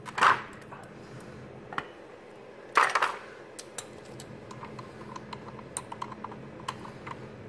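Steel hand tools clank sharply twice, then a socket ratchet clicks in a run of light, even ticks as it turns the stock bolt that presses the nut out of the suspension stanchion arm.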